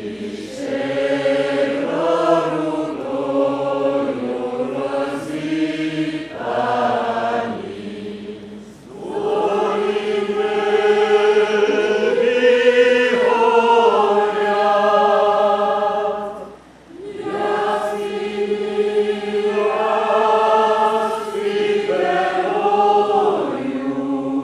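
Mixed group of men's and women's voices singing a chant together a cappella, in three long held phrases with short breath pauses between them.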